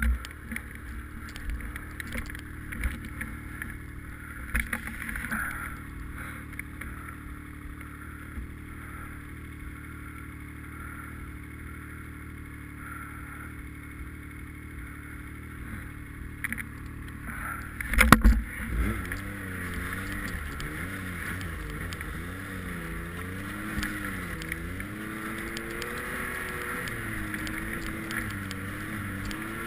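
Snowmobile engine running as it drives through deep snow, with knocks and jolts from the rough trail and one loud thump about two-thirds of the way through. After the thump the engine pitch rises and falls again and again as the throttle is worked.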